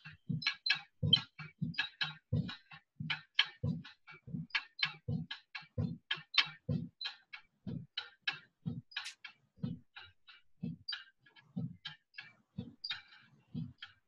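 Soft, sparse drumming on a drum kit: low drum hits alternating with light, sharp stick clicks in a loose, unsteady rhythm of about three to four strokes a second.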